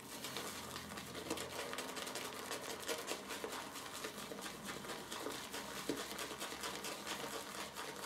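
Shaving brush whipping Haslinger sage shaving soap into lather in a lathering bowl: a steady, dense run of fast soft wet clicks from the swirling strokes. The lather is already creamy at this stage.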